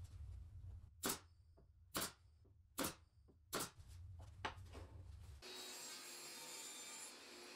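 Woodworking handwork: four sharp knocks about a second apart, then a steady scratchy rubbing noise of a tool working wood, starting about five and a half seconds in.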